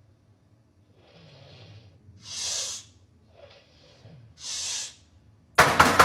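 A man snoring, two breaths: each a soft low rattle followed by a louder hiss. A sudden loud, fast-pulsing noise cuts in near the end.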